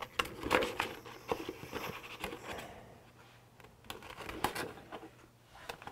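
Scissors snipping through a freshly laminated plastic pouch: a run of irregular short snips and scrapes, with a brief lull around the middle.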